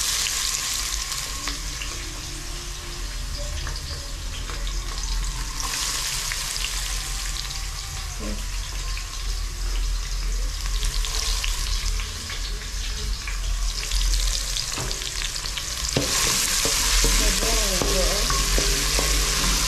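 Chopped red onions frying in sunflower oil in a stainless steel bowl, sizzling steadily while stirred with a wooden spoon, with small clicks of the spoon. The sizzle grows louder for the last few seconds.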